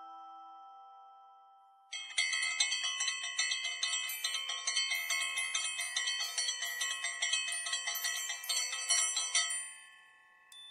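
Background music: a fading chord, then from about two seconds in a quick run of chiming bell-like notes that fades out near the end.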